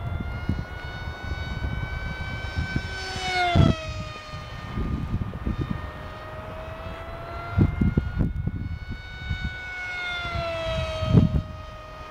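ParkZone Stryker F-27Q RC flying wing's electric motor and pusher propeller whining as it makes two fast passes. Each time, the whine swells and its pitch drops sharply as the plane goes by: once about a third of the way in and again near the end. A low, gusty rumble runs underneath.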